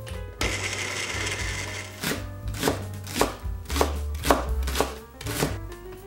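A kitchen knife slicing a long green onion (naganegi) on a wooden cutting board, in sharp cuts about twice a second. Before that there is about a second and a half of whirring blender noise.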